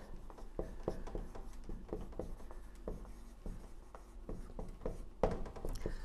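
Dry-erase marker writing on a whiteboard: a run of short, faint strokes as letters are written, with a brief louder sound about five seconds in.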